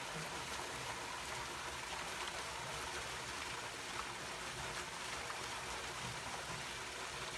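Water gushing steadily from a spout onto a tiled floor and through a channel of coffee cherries, splashing as the coffee is washed.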